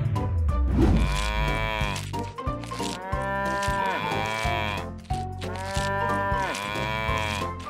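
Cows mooing: three long moos one after another, each rising and then falling in pitch, after a low rumble in the first second.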